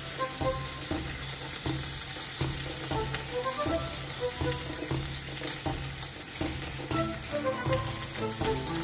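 Bacon sizzling as it fries in a pan, with a steady crackling hiss and the occasional scrape of a spatula moving the strips, under background music.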